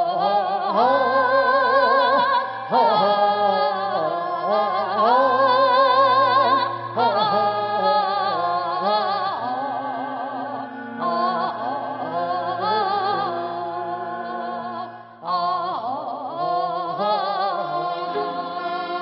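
Korean traditional orchestra (gugak orchestra) playing, with solo voices singing pansori-style vocalise over it with wide vibrato. About fifteen seconds in the sound briefly drops before a new vocal phrase enters.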